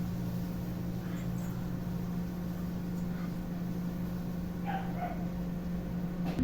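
LG microwave oven running in grill mode, a steady low hum from its motor and fan.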